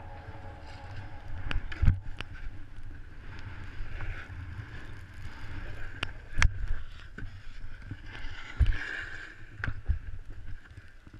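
Snowboard riding over packed snow, heard through a helmet-mounted camera: a steady low rumble and scraping, with several sharp knocks scattered through.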